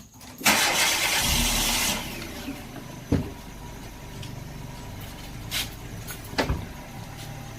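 A loud hiss for about a second and a half near the start, then a car engine idling steadily, with a few sharp knocks.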